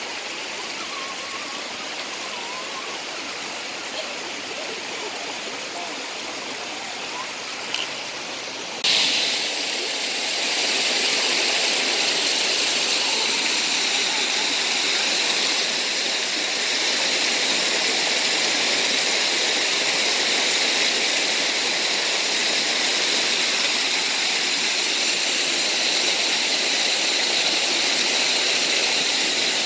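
Shallow creek water rushing over rock as a steady hiss. It turns abruptly louder and brighter about nine seconds in.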